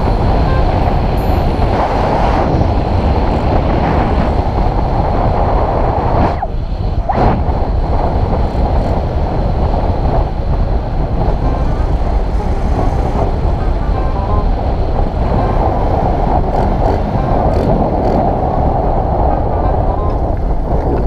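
Honda Wave 125 motorcycle's single-cylinder four-stroke engine running steadily with road noise, easing off briefly about six and a half seconds in.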